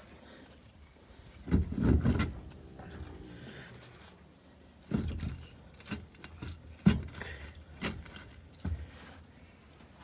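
Irregular clunks and knocks from a bus wheel being rocked by hand at the top and bottom of the tyre, the wheel moving on its hub: the play of a badly worn wheel bearing. A pair of knocks comes early, then a run of them in the second half.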